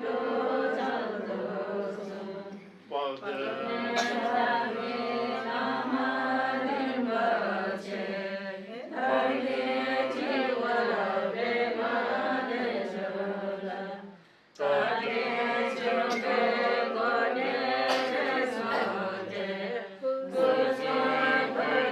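Buddhist monks chanting prayers together in unison, a steady recitation of many voices that breaks off briefly three times.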